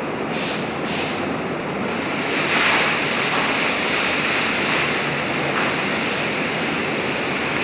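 Steady rushing roar of a large fire: an office workstation soaked in jet fuel burning with a heptane spray burner running. The noise grows louder and hissier about two seconds in.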